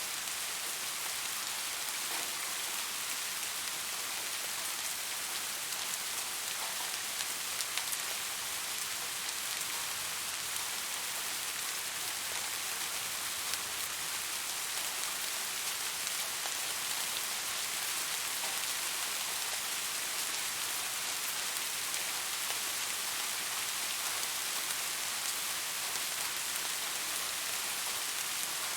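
Steady rainfall: an even, dense hiss with a few sharper drop ticks.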